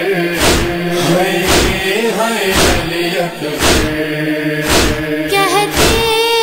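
Noha recitation: voices chant a drawn-out lament line over a steady beat that strikes about once a second. A solo singer's voice with wavering pitch comes in near the end.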